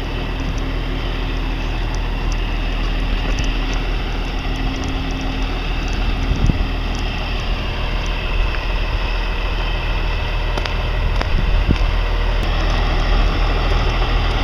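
Steady motor-vehicle noise: a low engine hum under an even wash of road or wind noise.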